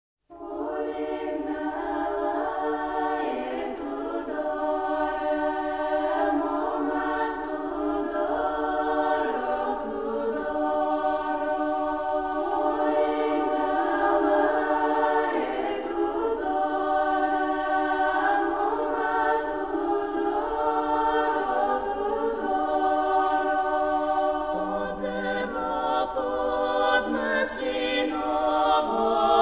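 Choir singing slow, sustained chords without accompaniment.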